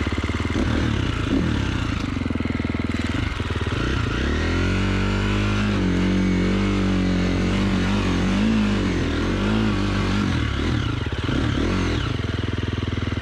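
KTM enduro motorcycle engine running and being revved: about four seconds in the revs climb and then hold higher, wavering up and down with the throttle.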